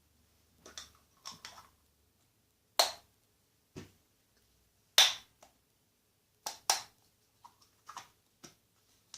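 Irregular sharp clicks and taps from handling the spiderlings' containers during rehousing, with the loudest knocks about three, five and six and a half seconds in.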